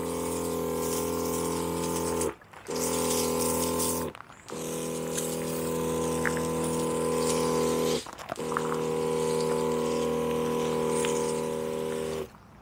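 12-volt electric pump of a battery-converted backpack sprayer running with a steady hum, cutting out briefly four times, while water hisses out of the spray wand.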